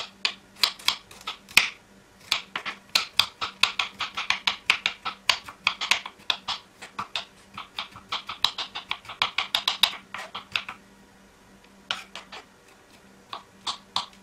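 Chef's knife chopping and mincing garlic cloves on a wooden cutting board: quick, crisp knocks of the blade on the board, about four or five a second, stopping about eleven seconds in, followed by a few scattered chops near the end.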